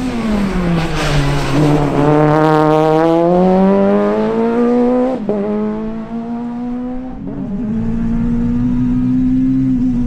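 Citroën C2 Super 1600 rally car's naturally aspirated 1.6-litre four-cylinder engine at high revs. The note dips, then climbs steadily for a few seconds. It breaks sharply about five seconds in, dips briefly again about seven seconds in, and then holds steady.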